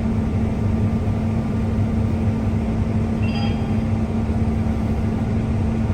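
A heavy vehicle's engine running steadily: an even low rumble with a constant hum.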